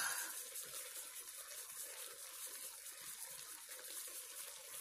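Faint, steady hiss and bubbling of food cooking on an electric stovetop: the meat and vegetables simmering in the wok and the pasta boiling.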